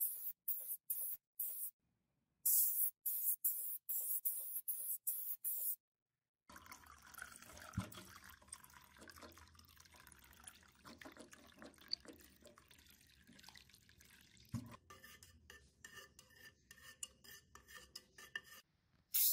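Spray-paint gun hissing in short bursts for about the first six seconds. Then a fainter stretch of liquid being poured into a metal cup of red paint and stirred with a stick, with a couple of dull knocks.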